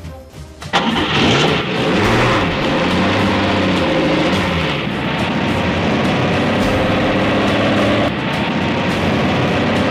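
Road roller's heavy engine running steadily, starting abruptly under a second in, with its pitch wavering at first and then holding.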